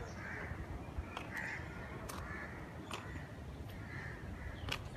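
Crows cawing, short harsh calls every second or so, over a low steady rumble with a few faint clicks.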